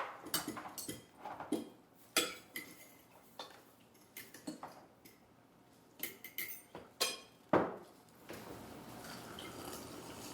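Dishes and cutlery clinking and clattering: a string of sharp, uneven clinks and knocks. About eight seconds in, a steady hiss takes over.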